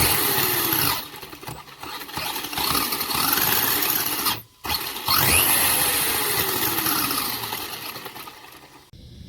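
Whine of an RC monster truck's brushless motor (a 3650-size, 3900 kV motor driven by a Hobbywing WP-SC8 ESC) being throttled up in bursts, its pitch rising and falling. The last burst winds down slowly to a low whine.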